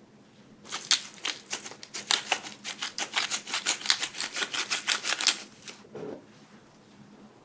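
Manual black pepper mill being twisted to grind pepper, a rapid train of crisp clicks at about five a second for some five seconds, then a soft knock.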